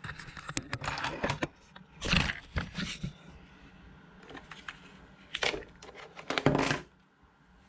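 Plastic parts of an MJX Hyper Go RC truck being handled: a run of clicks, knocks and scrapes as a plastic cover is pulled off the chassis, with louder knocks about two, five and a half and six and a half seconds in.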